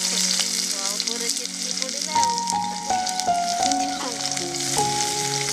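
Sliced red onions sizzling steadily in hot oil in an iron kadai, with background music of held notes that step from pitch to pitch.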